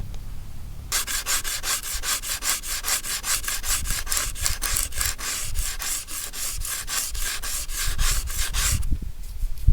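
Coarse abrasive paper rubbed by hand in quick back-and-forth strokes, about five a second, on the steel bonnet of a Ford Focus ST, taking cracked paint and rust down to bare metal. The strokes start about a second in and stop shortly before the end.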